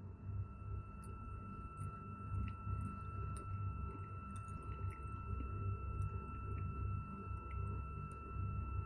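A steady high electronic tone held without a break over a low rumble.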